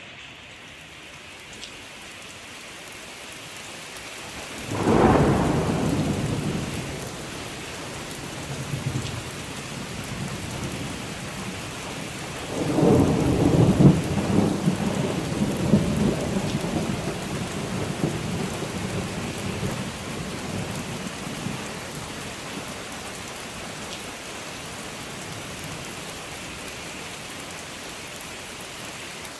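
Steady rain falling, with two rolls of thunder: a sharp clap about five seconds in that rumbles away, and a longer crackling rumble starting near the middle that slowly fades under the rain.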